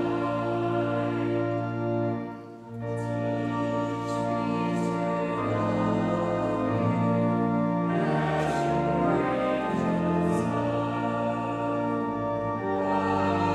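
Congregation and choir singing a hymn with organ accompaniment, in slow held chords with a short pause between phrases about two and a half seconds in.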